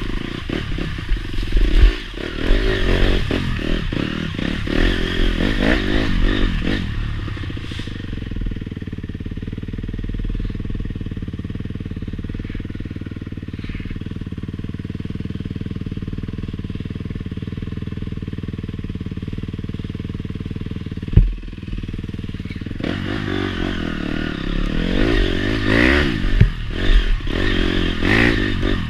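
Honda CRF four-stroke dirt bike engine being ridden, its revs rising and falling with rattles and clatter from the bike over rough ground. In the middle it settles into a long, steady, even run, broken by one sharp knock, then revs up and down again near the end.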